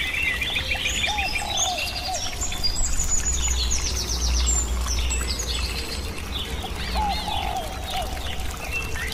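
Several songbirds chirping and singing at once, many quick high whistled notes overlapping, over a low steady rumble.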